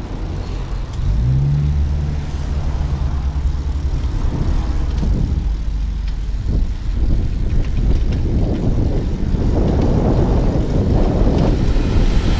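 Wind buffeting the microphone and road rumble while moving along a city street, growing louder in the second half. A motor vehicle's engine hum passes about a second in and lasts a few seconds.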